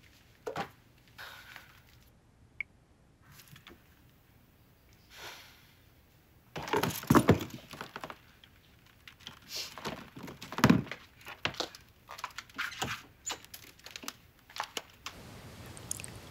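Small objects handled and dropped into a leather handbag at a dresser: a run of irregular clacks, knocks and rustles, after a few faint clicks. Steady background room noise takes over near the end.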